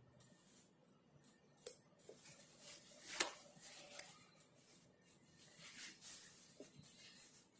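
Faint desk-work sounds: irregular soft scratching strokes and scattered light clicks, with one sharper click about three seconds in.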